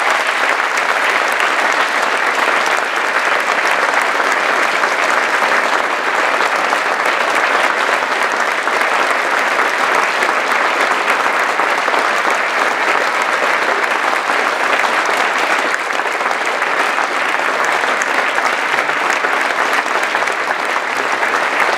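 A theatre audience applauding, dense and steady, with no letup.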